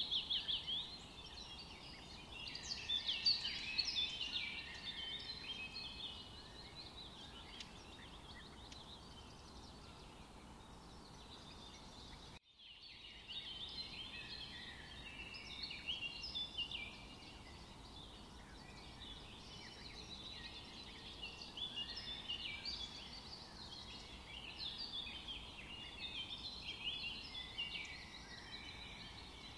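Many small birds chirping and twittering in a dense, continuous chorus, cut off briefly about twelve seconds in before it resumes.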